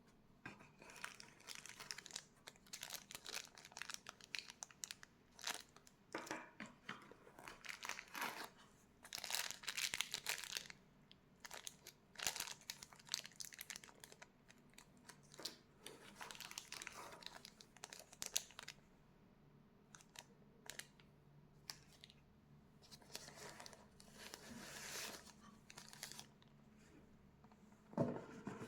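Packaging of a Keychron M6 mouse being opened by hand: wrapping crinkling and tearing in irregular bursts of rustling. There is a sharper knock near the end.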